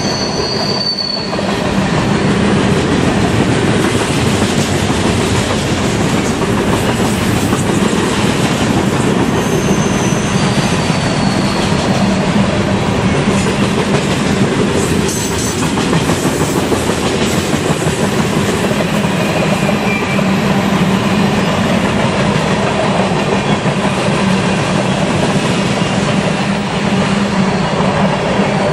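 Freight train cars rolling past at close range: a steady rumble of wheels on rail with clickety-clack, and brief faint wheel squeals a few times.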